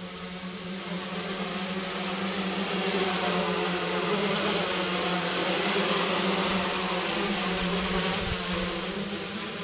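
Quadcopter's electric motors and propellers buzzing steadily in flight, with a steady hum underneath. The buzz grows louder over the first few seconds as the quadcopter comes closer, then holds.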